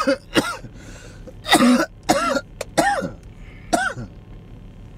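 A man coughing repeatedly, about six coughs spread over four seconds, some rough and some with a rising-and-falling voiced edge. The coughing is brought on by the thick smoke filling the closed car.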